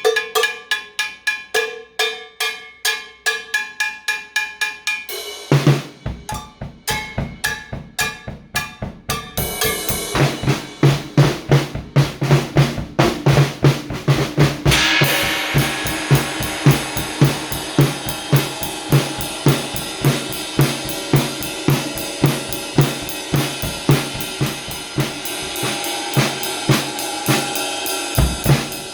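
Drum kit playing. A fast run of cowbell-like strikes gives way, about five seconds in, to bass drum and snare, and a cymbal crash about fifteen seconds in opens a steady full-kit groove.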